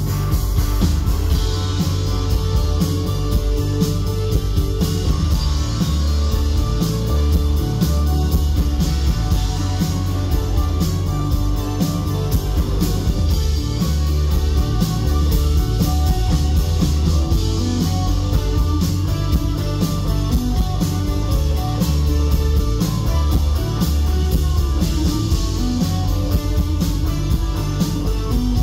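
Rock band playing live: an instrumental passage led by guitar over steady bass and drums, with no vocals.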